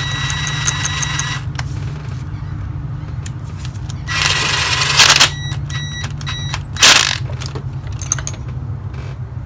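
Metal hand tools working on a new spark plug as it goes back into the engine: scraping and clinking, a burst of hiss about four seconds in, then a short run of rapid clicks and a sharp knock, over a steady low hum.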